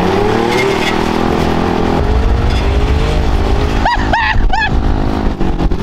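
Pit bike engine revving and rising in pitch, dropping about two seconds in as it shifts up, then climbing again. Short shouts are heard around four seconds in.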